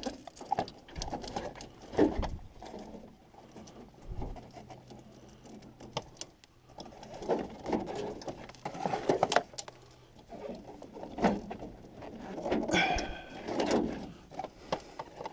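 Dove-like cooing recurring at intervals, over scattered clicks and rustling from a taped wiring loom and its plastic connectors being pushed through a van door.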